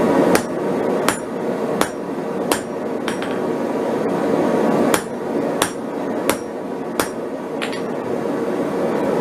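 A hand hammer striking steel on an anvil: four blows about 0.7 s apart, a pause of about two seconds, then five more blows at the same pace. Under them a steady rush, the propane forge burning.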